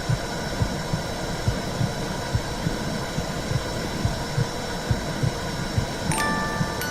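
Womb sound: a steady low whooshing rush with a soft heartbeat pulsing about twice a second. A few wind-chime notes ring in near the end.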